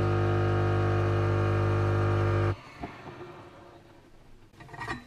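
Philips Senseo pod coffee machine's pump humming steadily as it brews coffee into a mug, then cutting off suddenly about two and a half seconds in as the brew ends. A few faint ticks follow.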